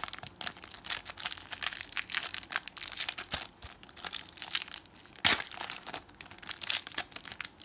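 Foil wrapper of a Panini Adrenalyn XL trading-card pack crinkling as it is handled and torn open, with one sharp, loud crackle about five seconds in.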